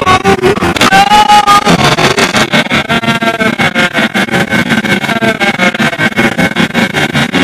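Loud nursery-rhyme music mangled by editing effects into a fast, even stutter, with pitched notes that waver and bend.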